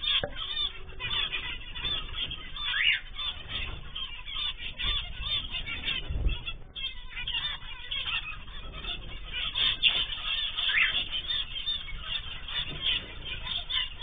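A flock of zebra finches calling without pause, a dense chatter of short nasal beeping calls. It comes through a security camera's microphone that cuts off the high end, so the calls sound thin.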